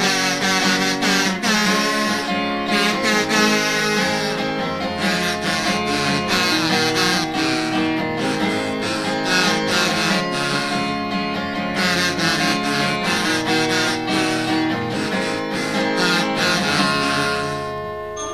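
Acoustic guitar strummed in a steady rhythm under held notes in an instrumental break, with no singing.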